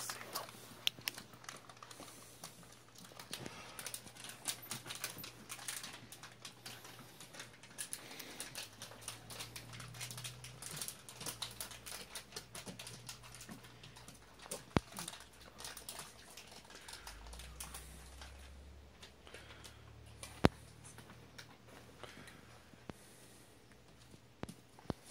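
Dog claws clicking and tapping on a wooden floor as the dogs fidget in place, a dense run of small irregular clicks with two sharper, louder clicks in the second half.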